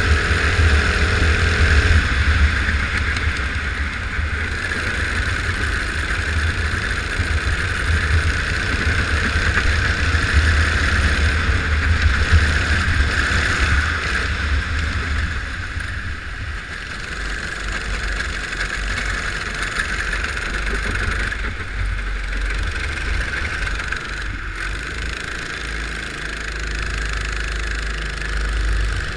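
Go-kart engine running during a race, a steady drone with a low rumble and a constant hiss. The low rumble eases about halfway through.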